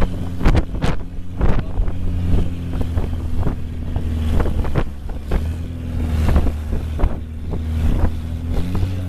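Longtail boat's engine running steadily under way, with frequent sharp slaps and splashes of water against the wooden hull.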